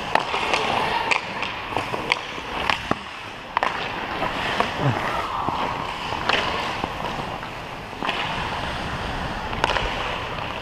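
Ice skate blades gliding and scraping on the rink, with scattered sharp clicks of a hockey stick hitting the puck and the ice.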